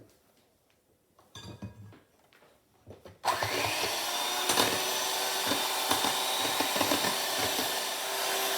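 Electric mixer switching on about three seconds in and running steadily, beating eggs and boiling water into a foamy batter. Before it, a couple of brief clatters of handling.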